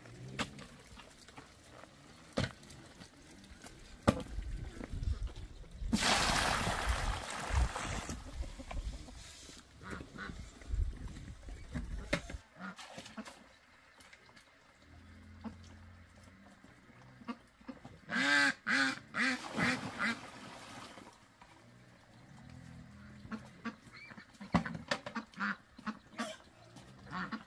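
Ducks quacking: a quick run of about half a dozen calls around eighteen seconds in, and a few more scattered calls near the end. About six seconds in, a harsh scraping rush lasts about two seconds.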